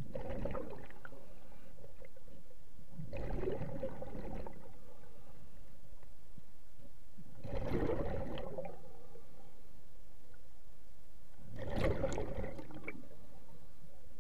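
Scuba diver's exhaled breath bubbling out of the regulator underwater, four exhalations about four seconds apart, each lasting about a second, over a steady background hiss.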